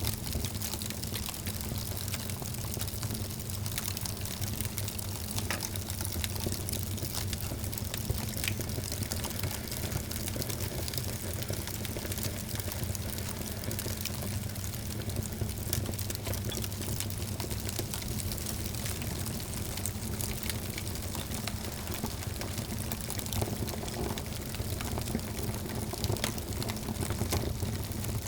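Wood fire burning in a fireplace, crackling steadily with many small pops and snaps over a low rumble of flame.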